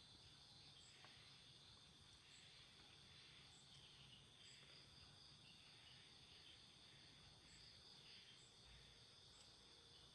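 Faint, steady trilling of crickets, with a higher chirp repeating about once a second.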